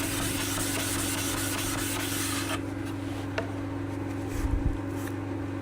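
Metal sole of a low angle block plane being rubbed back and forth on a wet abrasive plate to flatten it, a steady scraping rasp that stops about halfway through.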